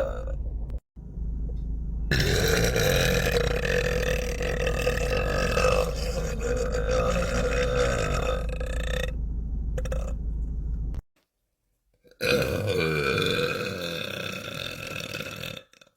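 A man belching: long, drawn-out burps held at a steady pitch. The first runs about nine seconds. After a short pause a second one lasts about three and a half seconds.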